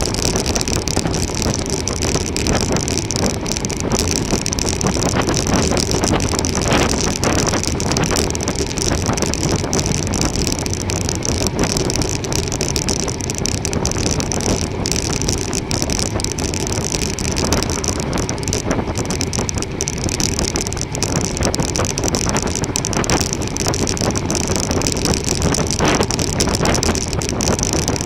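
Steady wind rush over the microphone, with bicycle tyre and road noise, while riding a road bike.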